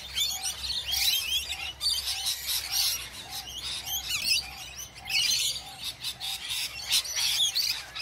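A flock of rainbow lorikeets screeching and chattering in a dense, continuous mix of fast high chirps. Under it, a short lower note repeats about twice a second.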